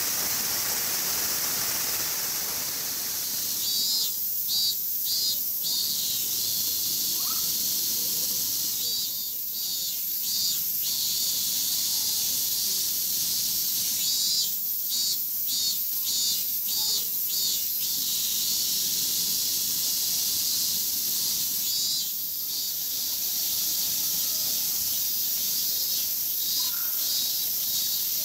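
A chorus of cicadas gives a steady high hiss, with bouts of pulsing calls coming and going every few seconds. A broader rushing noise fades out about three seconds in.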